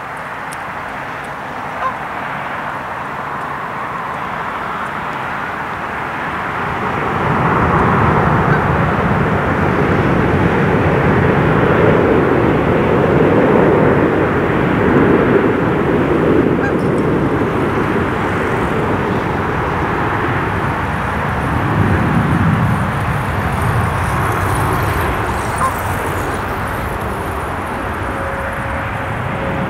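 Jet airliner passing overhead: a broad engine rumble that swells about seven seconds in, stays loud for several seconds, then slowly fades.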